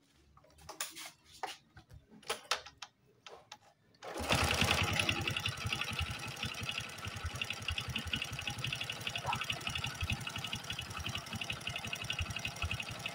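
Honda Supra X 125 engine starting up about four seconds in after a few clicks and knocks, then running with a rough, rapid mechanical rattle. The mechanic puts the noise down to the pistons and a worn cam chain, and perhaps the connecting rod, which still needs checking.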